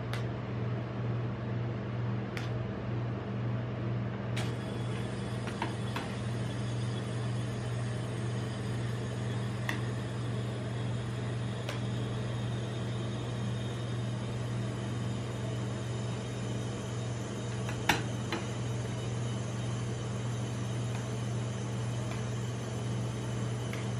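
A metal spatula scraping and rolling ice cream across a frozen steel plate, with short clicks of steel tools against the plate and one sharp clack about eighteen seconds in. A steady low machine hum runs underneath, typical of the cold plate's refrigeration compressor.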